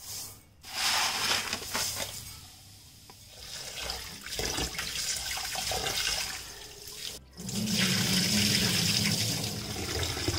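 Tap water running and splashing into a glass bowl of basmati rice in a steel sink while hands rub and swish the grains to wash them. After a short break about seven seconds in, the flow comes back louder and steadier.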